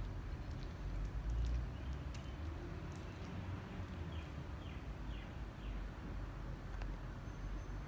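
A sleeping dog snoring in low, uneven breaths.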